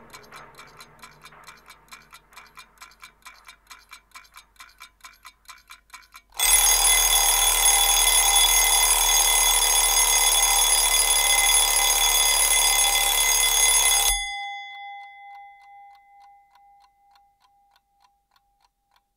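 A clock ticking rapidly. About six seconds in, an alarm clock starts ringing loudly and steadily, and after about eight seconds it cuts off suddenly. Faint ticking carries on after it.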